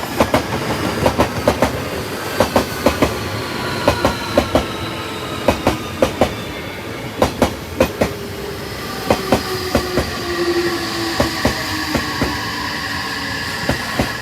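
Odakyu electric train passing over a level crossing: wheels clicking over rail joints in quick pairs and groups over a steady rumble, with a faint motor whine slowly falling in pitch.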